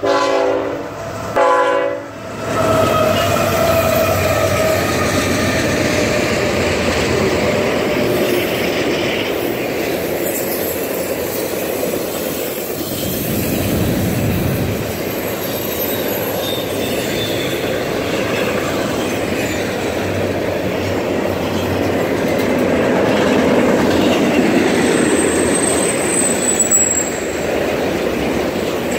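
CSX intermodal freight train: the diesel locomotive gives two short horn blasts, then the train rolls past close by. Steady wheel-on-rail rumble with clickety-clack as the double-stack container and trailer cars go by, with a brief high wheel squeal near the end.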